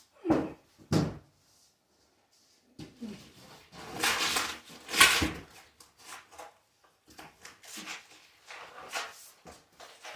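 Two heavy thumps, then scraping and rubbing with scattered knocks: ceiling panels or drywall being handled and moved into place.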